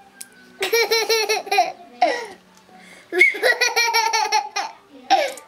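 A toddler laughing in two long runs of quick, high-pitched belly laughs, one starting about half a second in and one about three seconds in, with a shorter laugh between them.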